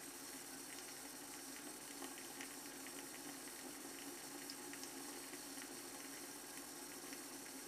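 Shavette razor with a pre-cut half blade scraping through lathered stubble on the neck, heard as faint, scattered short scratchy ticks over a steady background hiss.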